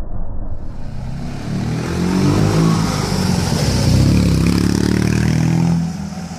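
A 1972 Fiat 500 L's air-cooled two-cylinder engine running through an Alquati aftermarket exhaust as the car accelerates toward and past, inside a covered parking garage. The engine is loudest as it passes and drops off near the end as the car pulls away.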